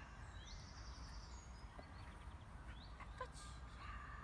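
Outdoor ambience: small birds chirping and trilling now and then over a low steady rumble.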